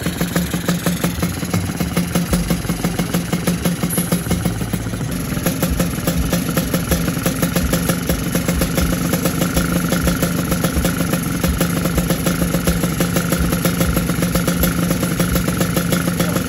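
Yamaha RX two-stroke single-cylinder motorcycle engine, fitted with a PWK 33 carburettor, idling steadily, a little louder from about five seconds in.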